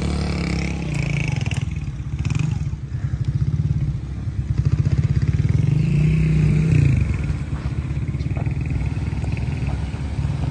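Off-road side-by-side (UTV) engine running under way, revving up briefly about six seconds in and dropping back.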